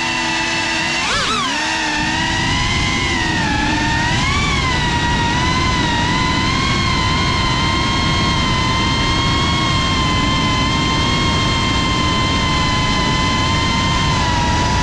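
GEPRC Cinelog35 cinewhoop FPV drone's motors and ducted propellers whining at high pitch. The pitch rises and falls sharply about a second in, then holds nearly steady with small swells.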